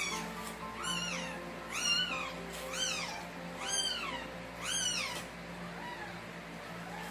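Newborn Shih Tzu puppy crying in a run of high squeals, about one a second, each rising then falling in pitch and fading toward the end. It cries while fluid it took in is cleared from its nose and mouth with a bulb syringe.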